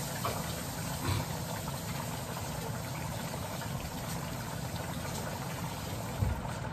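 Water running from a kitchen faucet into a stainless steel sink as something is rinsed under it, over a steady low hum, with a few light knocks.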